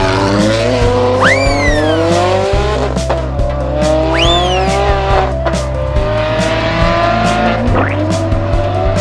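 Race car engine revving sound effect, rising and falling in pitch, with two tire screeches about one second and about four seconds in, over background music.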